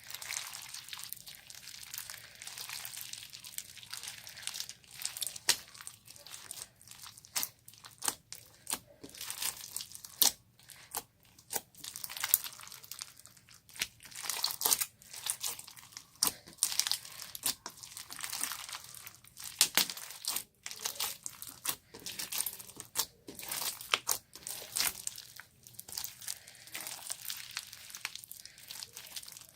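Slime being worked by hand, with a dense, irregular run of crackling clicks and pops.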